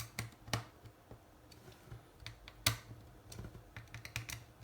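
Irregular small clicks and taps of the oscilloscope kit's circuit boards and plastic housing parts being handled and fitted together. The loudest clicks come about half a second in and just before three seconds.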